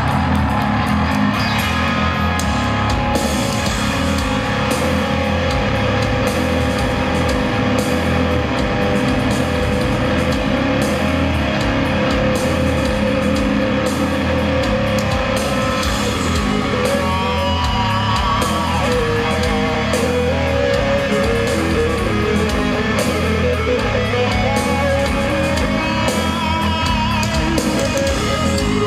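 A live rock band plays a heavy riff on distorted electric guitars, with bass and a drum kit keeping a steady beat.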